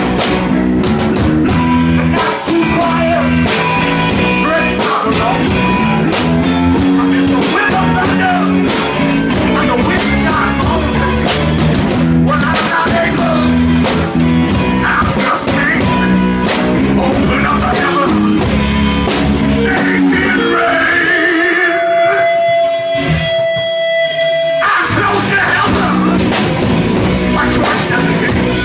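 A rock band playing live, guitar-led over a steady drum beat. About three quarters of the way through, the drums and low end drop out for a few seconds, leaving a few held guitar notes, then the full band crashes back in.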